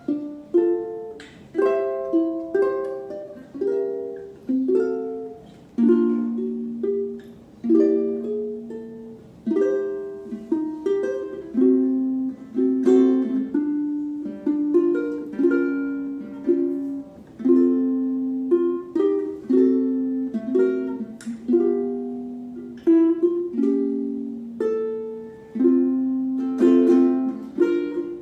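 Maestro Island Series UT-MR SB G ukulele played fingerstyle, a melody over plucked chords, each note struck and left to ring and fade, with a warm tone in a small room.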